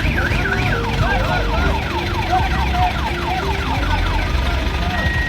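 Electronic vehicle warning sirens sweeping rapidly up and down in pitch, one sweeping pattern giving way to another about a second in, over the low rumble of heavy engines running.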